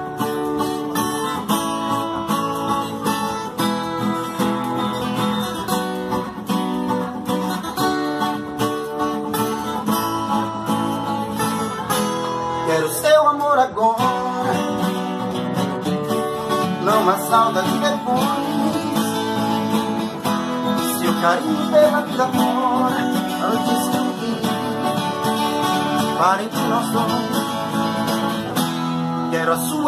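Acoustic guitar playing a melody, with a few sliding notes about halfway through.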